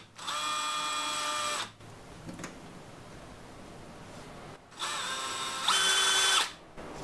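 DeWalt 20V cordless drill spinning a thin bit into the diorama base in two short runs: a steady whine for about a second and a half, a pause, then a second run that steps up to a higher, louder whine before stopping.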